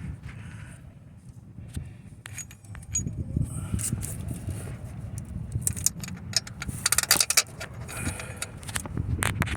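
Metal hand tools clinking and rattling against the engine while the alternator's lower bolt is worked on, over a low rumble. A quick run of clicks comes about seven seconds in.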